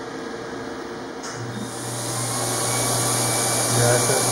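Surgical smoke evacuator switching on about a second in and spinning up to a steady hiss with a low hum, drawing off the smoke plume while a CO2 laser vaporises a skin growth.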